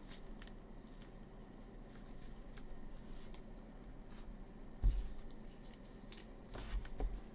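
Faint handling of trading cards: small clicks and rustles as cards are moved about, with a soft low thump about five seconds in and a few light knocks near the end.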